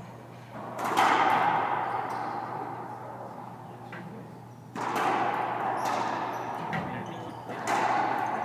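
Racquetball rally: the ball is struck hard and smacks off the court walls, three loud echoing hits about a second in, near five seconds and near the end, with fainter ticks between. Each hit rings on in the enclosed glass-walled court.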